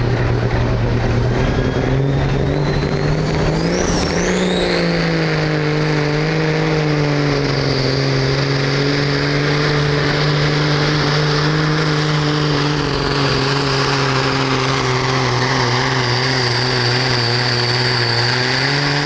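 Pulling truck's engine revving hard and held at high revs under load as it drags the sled, its note climbing a few seconds in and then holding steady. A high whistle rises over the first few seconds and then holds. Right at the end the engine note starts to drop.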